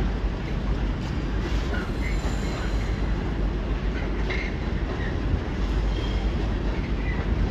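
Freight train running past on the rails: a steady low rumble of wagons, with brief high squeaks from the wheels now and then.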